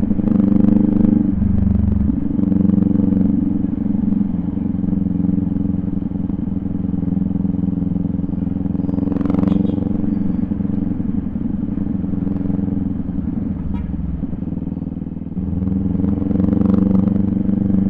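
Motorcycle engine running steadily under way, its note shifting about a second and a half in and again near the end.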